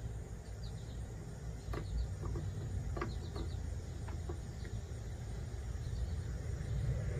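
Outdoor background: a steady low rumble, with short runs of three or four high chirps every second or so. A few faint clicks and taps come as a soil-sample scoop and bag are handled.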